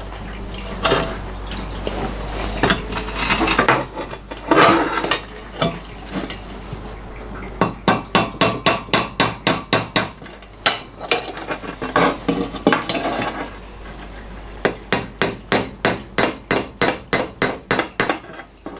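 Hammer tapping a machined sleeve into the thin, egg-shaped end of an EGR cooler pipe to stretch it round. Scattered knocks and metal handling come first, then two runs of quick, even blows, about four or five a second.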